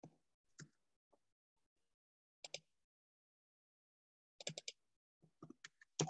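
Near silence broken by scattered short clicks and knocks, with a quick run of four clicks about four and a half seconds in.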